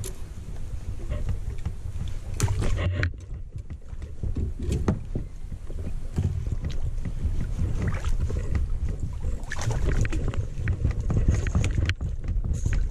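A kayak and the gear in it being moved about: scattered knocks and clicks over a steady low rumble, with a quieter moment about three seconds in.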